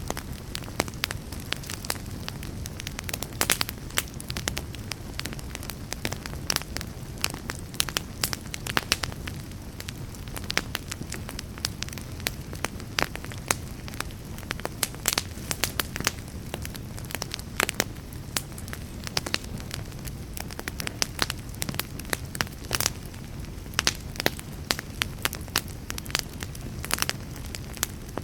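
Wood fire burning in a fireplace, with a steady low rumble and frequent irregular crackles and pops.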